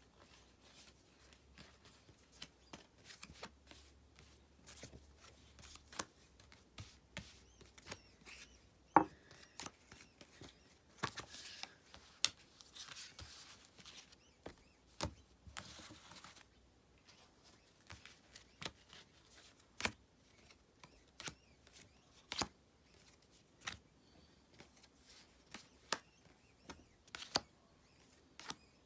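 Trading cards being handled: scattered faint taps and clicks with a few brief soft slides of card on card, the sharpest tap about nine seconds in.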